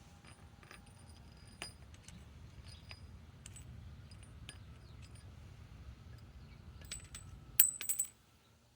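Handling of a cordless impact wrench, its battery and lag screws: a few faint clicks, then a quick cluster of sharp metallic clicks and clinks near the end, over a faint low hum.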